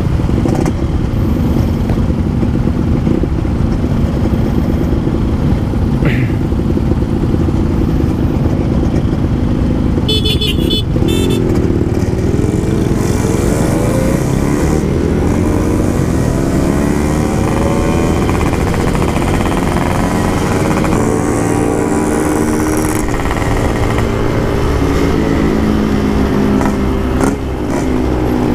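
Yamaha RX-King's 135cc two-stroke single-cylinder engine with an aftermarket exhaust, ridden on the road, its pitch rising and falling as the rider revs through the gears over a steady low rumble. A horn beeps briefly about ten seconds in.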